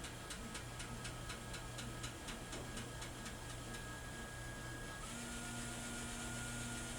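Automated fiber-optic inspection and cleaning machine's integrated cleaner working on LC connector end faces: a rapid run of mechanical clicks, about four to five a second, over a faint whine. About five seconds in, the clicking stops and a steady hiss with a low hum takes over.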